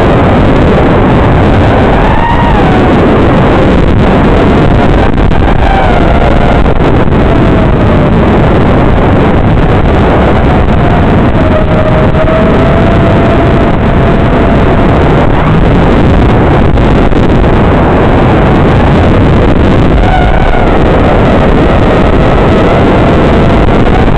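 FPV quadcopter's brushless motors and propellers, heard from the drone's own onboard feed: a loud, steady rush of prop wash and wind under a motor whine that rises and falls in pitch with the throttle.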